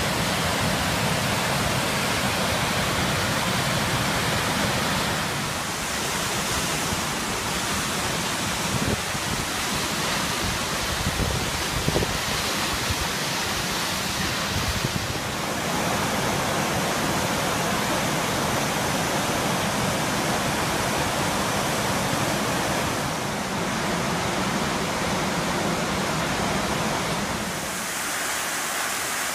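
Waterfalls rushing, a steady, dense hiss of falling water whose tone shifts several times as the recording cuts from one falls to another. There are a few brief bumps near the middle.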